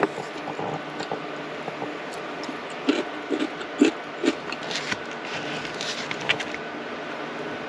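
Eating utensils clicking and tapping: wooden chopsticks picking cubed radish kimchi out of a glass jar, and a spoon scooping rice from a bowl. The clicks come in a cluster of sharp taps a few seconds in, over a steady background hiss.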